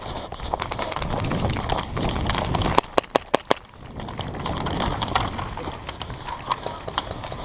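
Footsteps and gear rustle of a player on the move, with a quick string of about five sharp airsoft gun shots a little before the middle.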